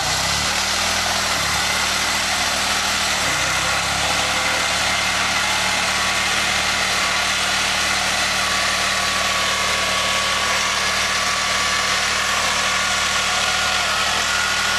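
Bare steel wheel rim spinning on the pavement with no tyre, a continuous metallic grinding and scraping that throws sparks, over a truck engine held at high revs. The engine revs rise right at the start, dip about three seconds in, then hold steady.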